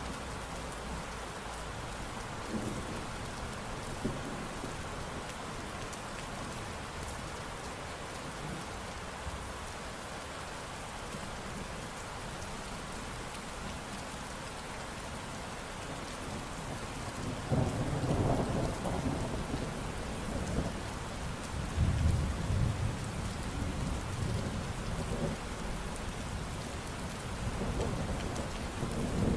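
Steady rainfall hissing, with rolls of thunder rumbling in over the second half, loudest about two-thirds of the way through and building again near the end.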